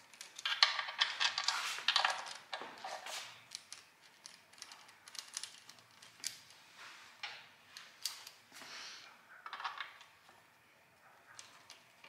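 Hand ratchet clicking in quick runs while the long oil pan bolts are driven into a Toyota 2JZ engine. The densest clicking comes between about half a second and three seconds in, with scattered single clicks after and another quick run near ten seconds.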